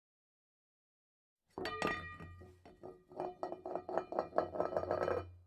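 Repeated clinking strikes with ringing tones, starting suddenly about one and a half seconds in and coming faster toward the end, over a steady low hum.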